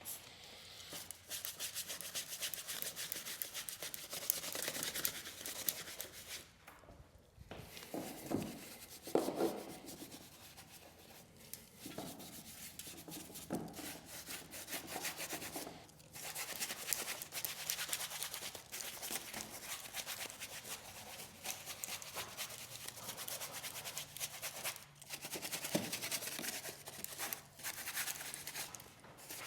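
A stiff brush scrubbing a surface in rapid back-and-forth strokes, in long spells broken by brief pauses.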